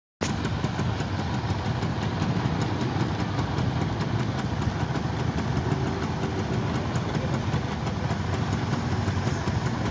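A motorcycle engine idling close by, with other waiting vehicles idling behind it: a steady, low running sound that starts abruptly right at the beginning.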